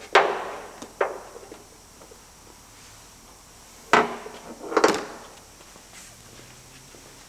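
A few sharp knocks and clacks of hard parts being handled while a bonnet strut is fitted on a Porsche Boxster 986. The loudest is right at the start, another comes about a second in, and a short cluster around four to five seconds in.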